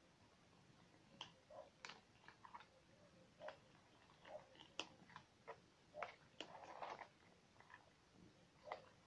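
Several domestic cats eating from a plastic bowl: faint, irregular crunches and clicks of chewing and biting.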